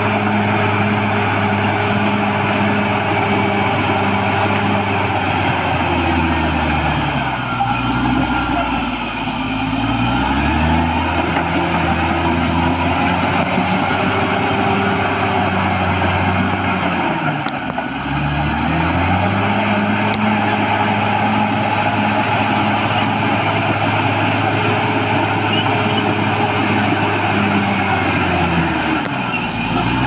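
Caterpillar D6R XL bulldozer's diesel engine running hard as the machine pushes soil with its blade. The engine note sags and climbs back a few times, about a quarter of the way in, again past the middle, and once more at the very end.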